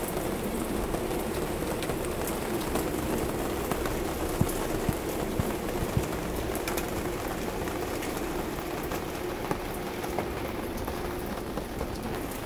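Steady rain falling on a garden after a hailstorm, with a few sharp ticks of drops striking around the middle.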